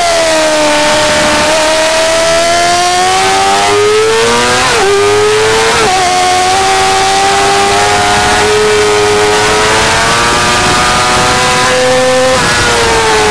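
2008 Yamaha R6 inline-four sportbike engine under hard acceleration, its pitch climbing through the gears with two quick upshifts about five and six seconds in, then revving on toward about 100 mph. Near the end the pitch drops sharply as the throttle closes for braking. Steady wind rush runs underneath.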